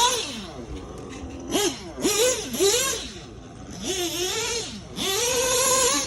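Engine sound revving in a series of short blips, the pitch sweeping up and dropping again each time, with a longer rev held high near the end.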